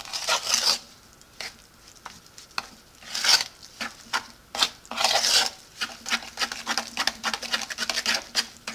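A spoon stirring and scraping thick muffin batter in a wooden bowl, in uneven strokes that turn into a run of quick clicks near the end.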